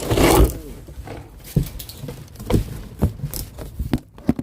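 Rustling burst as a cardboard box and its packing are opened, then a few separate knocks and taps from handling the box and the part inside.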